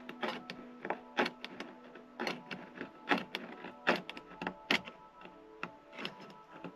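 Knife scraping and tapping inside an opened metal tin can, giving irregular sharp metallic clicks and scrapes.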